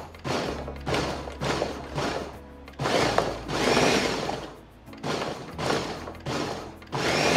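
Ninja blender being pulsed to chop shredded smoked chicken: short bursts of the motor and blades about two a second, one longer run about three seconds in, then more quick pulses, running continuously near the end.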